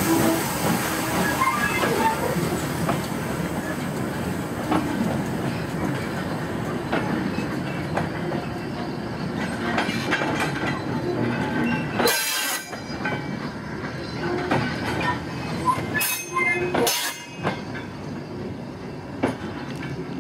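Vintage passenger carriages rolling away behind a steam locomotive, wheels clacking over the rail joints with brief flange squeals, the rumble slowly fading as the train draws off. There are a few sharp knocks about twelve and sixteen seconds in.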